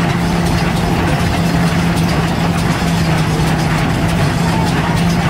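Engine running at a steady, unchanging speed, working a stationary straw baler and threshing machinery, with a constant low hum over a dense mechanical clatter.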